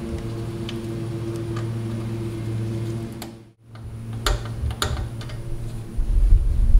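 Click-type torque wrench ratcheting on the EGR valve bolts as they are torqued to 19 ft-lb, with a few sharp clicks a little after halfway, over a steady low hum.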